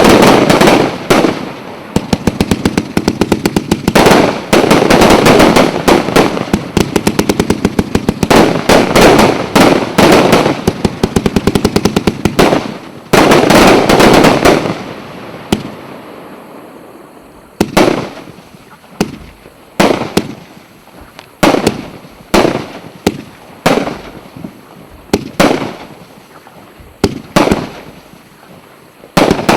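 A 250-shot, 1.2-inch consumer fireworks cake firing: rapid volleys of launches and bursting shells for about the first fifteen seconds, then thinning to single bangs about one a second.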